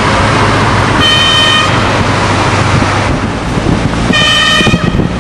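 Air horn sounding two blasts, one about a second in and one about four seconds in, each under a second long, over the steady noise of a car driving.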